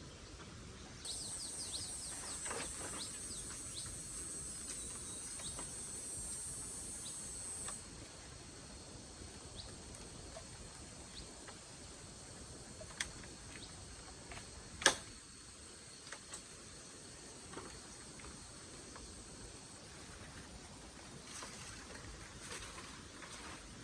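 Insects buzzing high and steady, cutting off about eight seconds in, with a fainter high tone carrying on under scattered small clicks. A single sharp click about fifteen seconds in is the loudest sound.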